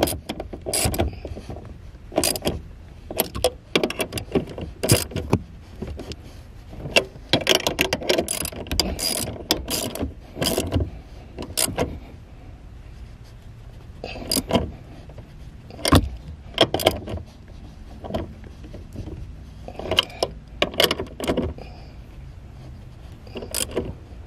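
Ratchet wrench on a socket extension tightening the screws of an accelerator pedal bracket. It clicks in irregular runs of quick ratcheting clicks, with short pauses between strokes.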